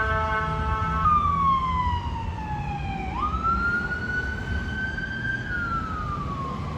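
Ambulance air horns blasting a steady chord that cuts off about a second in, then the electronic siren wailing: a tone sliding down, jumping back up, rising slowly and falling again, over the low rumble of the vehicle's engine.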